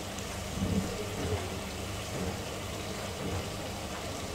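Onion-tomato masala frying in oil in an aluminium pressure cooker over a low gas flame, a steady gentle sizzle with a few soft bumps.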